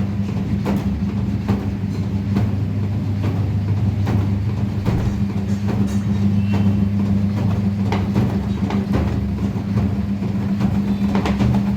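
Samsung fully automatic washing machine running its spin, the motor and drum humming steadily with scattered light clicks.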